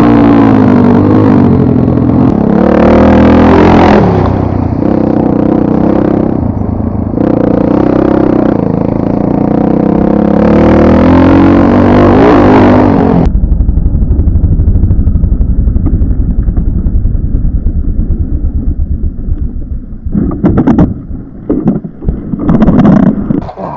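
Chinese two-stroke enduro motorcycle engine revving hard with rising and falling pitch, then about 13 seconds in suddenly dropping to a low, even, pulsing idle. Several knocks and clatter come near the end.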